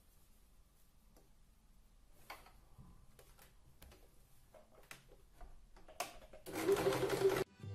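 Faint clicks and rustles of fabric pieces being lined up under the presser foot of a HomeDecor 1015 electric sewing machine. Near the end the machine runs and stitches for about a second, then stops abruptly.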